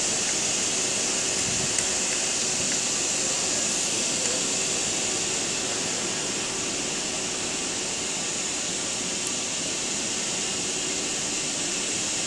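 Steady, even hiss of background room noise with no distinct events.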